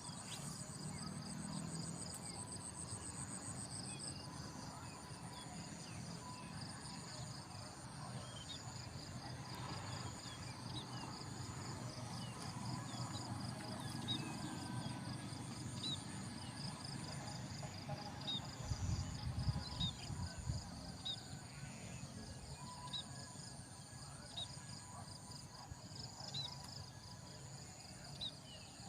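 A chorus of insects chirping, with rapid pulsing trills that go on steadily. A few low thumps and rumbling come about two-thirds of the way through.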